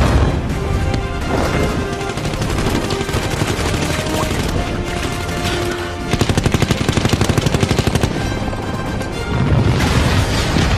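Movie battle soundtrack: orchestral score under a dense din of combat, with a burst of rapid machine-gun fire lasting about two seconds midway and a heavy low rumble building near the end.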